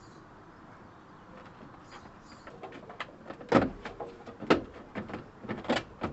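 A hand spanner clicking and scraping on a bolt at a car's front slam panel, with three louder metallic rasps about a second apart in the second half. Small birds chirp faintly in the first half.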